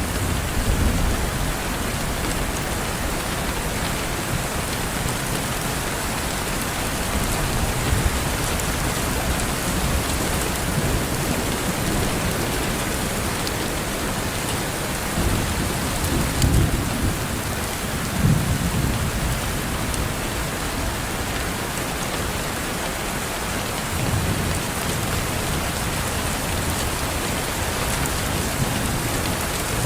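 Steady rain falling on a window, an even hiss of drops throughout. A few brief low rumbles rise and fade, most of them around the middle.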